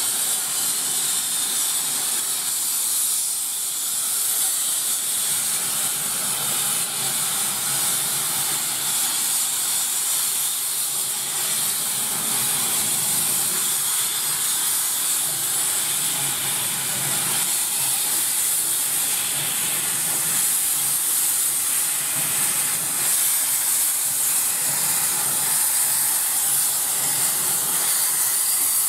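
Steam locomotive, SECR O1 class 0-6-0 No. 65, venting steam from low at its front end: a steady, loud hiss that grows slightly louder near the end.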